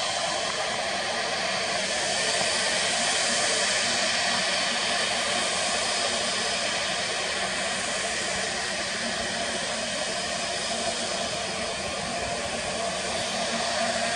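Airbus A320neo jet engines running at low thrust as the airliner taxis on the runway: a steady rushing noise with a high whine of several steady tones.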